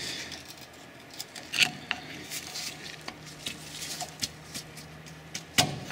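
A steel pry bar working at old, rusted rear brake pads seated in the caliper carrier: scattered light metallic clicks and scrapes, the sharpest knock about five and a half seconds in. The pads are stuck fast in the carrier.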